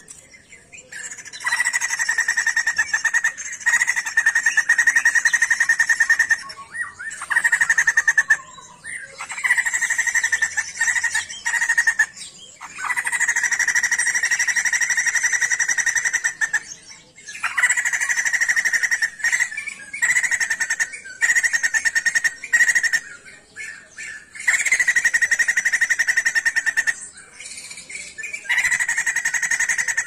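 Sumatran laughingthrush calling in a series of long, rapid rattling trills, each holding a steady pitch for one to three seconds, with short pauses between them.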